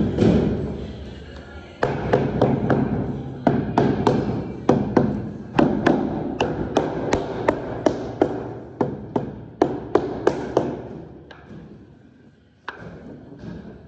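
A rubber mallet taps a vinyl stair nosing down onto double-face tape along the stair edge. There is a quick run of sharp taps, two or three a second, that thins out to a few near the end. A short scuffing of hands pressing the nosing comes before the taps start.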